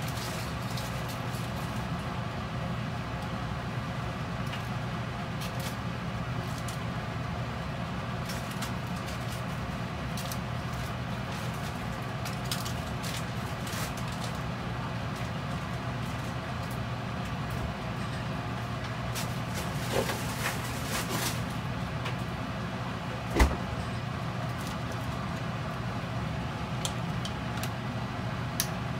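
Steady kitchen hum and hiss, with scattered light clicks and one sharp knock about two-thirds of the way through as vegetables are put into a metal cooking pot.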